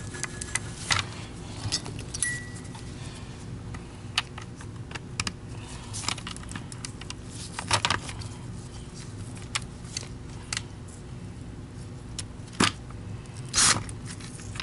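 Plastic parts of a Filter Queen power nozzle being handled and fitted together as the brush roll is seated in its housing: scattered clicks, knocks and rattles, with a few louder clacks, over a steady low hum.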